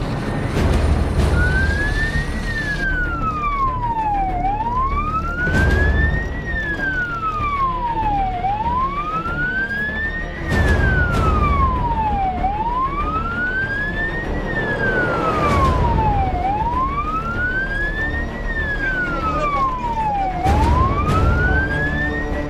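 Fire engine siren wailing, rising and falling evenly about once every four seconds, over the low rumble of the truck on the road.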